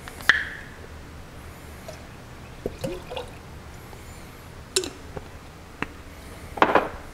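A small glass jar of clam juice is twisted open with a sharp click, then poured into a saucepan of water and wine. The juice glugs from the jar's neck and splashes into the liquid, with a couple of light clinks of glass.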